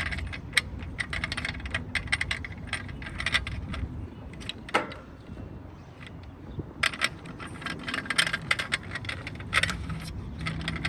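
Electrical wire being fished through a knockout in a sheet-metal disconnect box: a run of sharp clicks, scrapes and jangling rattles of wire against metal, easing off for a couple of seconds around the middle, over a low steady hum.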